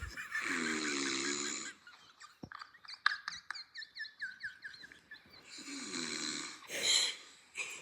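A man snoring: two snores, each about a second and a half long and about five seconds apart, with quieter breathing noises and small clicks between them.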